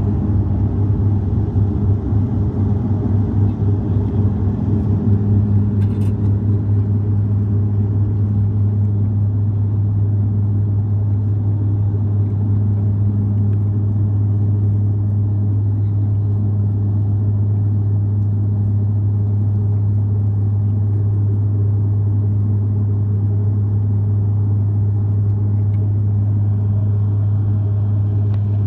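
Dash 8 turboprop's engines and propellers droning, heard from inside the cabin just after lift-off and through the climb-out: a loud, steady low hum with a strong propeller tone. For the first few seconds it wavers with a rough rumble, then settles into an even drone, with a short click about six seconds in.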